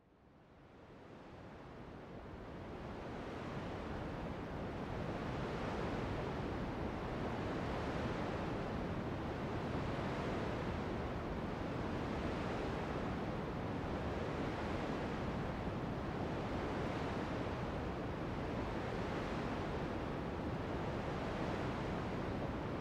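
Ocean surf washing in steady waves. It fades in over the first few seconds, then surges and eases every two seconds or so.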